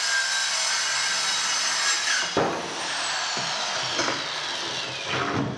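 Handheld circular saw cutting along a curved line through 18 mm plywood, running steadily under load. A high whine falls slowly in pitch through the second half, with a couple of heavier jolts as the blade is worked around the curve.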